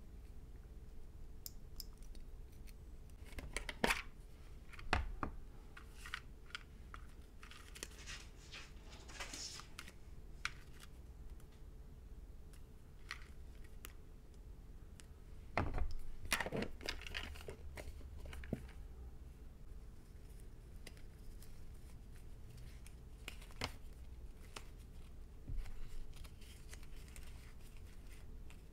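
Crinkling and rustling of plastic and paper sticker sheets being handled and sorted, with scattered small clicks and a few sharp knocks, the loudest about 16 seconds in.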